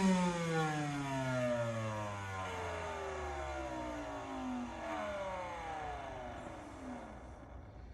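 Ridgid 18 V cordless wet/dry vacuum motor winding down after being switched off: a whine of several tones falling steadily in pitch and fading away over about seven seconds.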